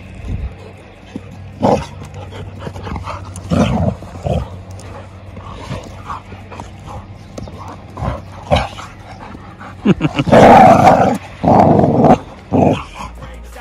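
Two dogs growling in short bursts as they wrestle in a rough play-fight. The loudest outburst comes about ten seconds in and lasts a couple of seconds.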